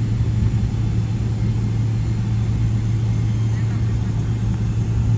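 Steady low hum of a jet airliner's engines heard inside the cabin, with the plane on the ground after landing.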